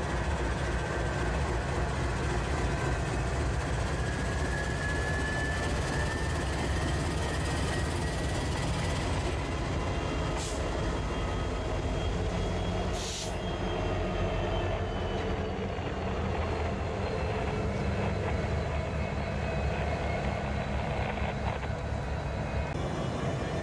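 Diesel-electric locomotives, a Norfolk Southern GE unit and a Union Pacific unit, running steadily as they pass slowly at close range, with a brief hiss about halfway through.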